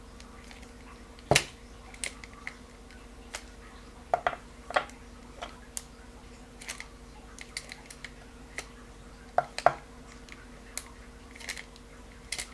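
Scattered sharp clicks and light knocks from handling a spinning fishing reel and its small parts during reassembly, the loudest a little over a second in and again near ten seconds.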